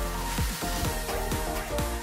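Electronic dance music background track: a steady, pounding kick drum under sustained synth chords.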